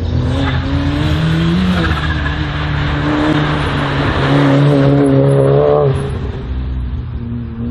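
Slalom race car engine revving hard, its note climbing and dropping several times. It is loudest about four to six seconds in, then falls away.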